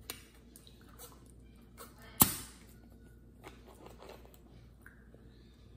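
Plastic bottle of Sparkling Ice sparkling water being handled and its cap gripped and twisted, with scattered small clicks and one sharp, loud crack a little over two seconds in that fades quickly.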